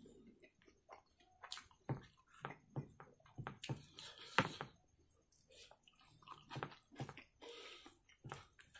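Close-miked wet eating sounds: fingers squishing and mixing rice on a plate while the mouth chews, in irregular wet clicks and smacks.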